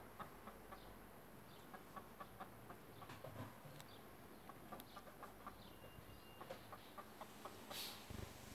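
A chicken clucking faintly in short, soft clicks as it forages, with a brief rustle near the end.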